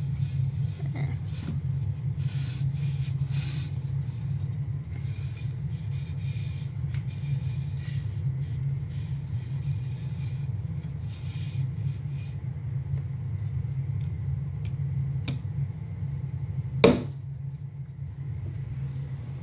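A hand rubbing a cloth over a mannequin head, heard as irregular scratchy rustling over a steady low hum. One sharp knock near the end is the loudest sound.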